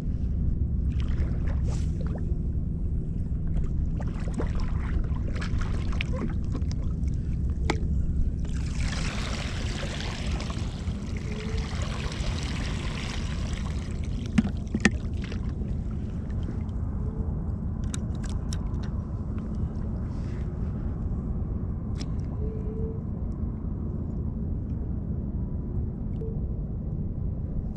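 Shallow bay water sloshing and splashing around a wading angler, with a longer burst of splashing about nine seconds in that lasts some five seconds, over a steady low rumble.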